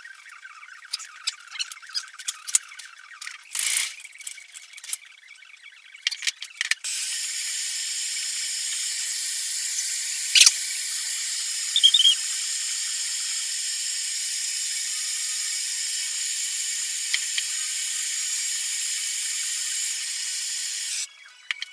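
Handheld blowtorch flame hissing steadily while heating a steel rebar so it can be bent; it lights abruptly about seven seconds in and shuts off just before the end, after a few seconds of scattered clicks and knocks of handling.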